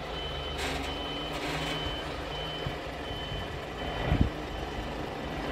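Mobile crane truck's reversing alarm beeping, about one high beep a second, over the steady running of its diesel engine.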